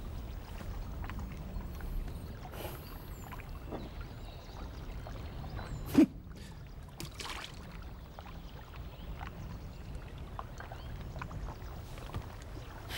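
Lake water lapping, a steady low wash, broken by one sharp knock about six seconds in.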